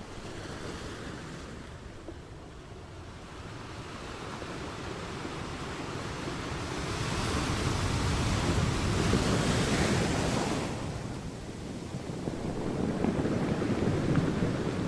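Sea waves breaking on a shore: the surf swells, one wave crashes and washes in with a loud hiss about halfway through, then falls back before the next swell builds near the end.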